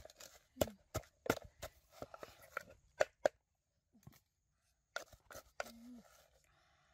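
Irregular sharp knocks and crunching clicks, which pause for a moment midway before starting again.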